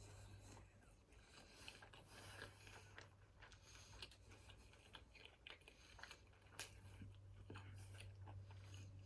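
Faint sounds of a person chewing food, with scattered small crunches and mouth clicks over a steady low hum.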